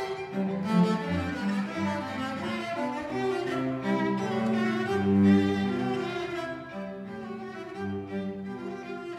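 Violin and cello playing a duet with bowed, held notes, the cello's line moving in the low register beneath the violin.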